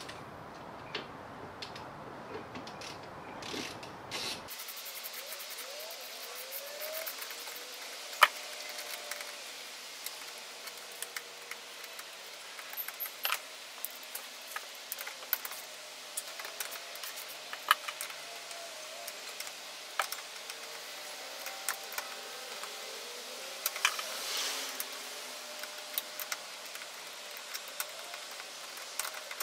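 Socket ratchet on an extension working the long 12 mm bolts that hold an NB Mazda MX-5's steering column, with irregular sharp clicks and light knocks of the tool against metal.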